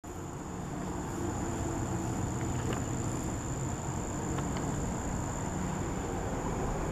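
A steady, unbroken, high-pitched insect drone, with a low noisy rumble underneath.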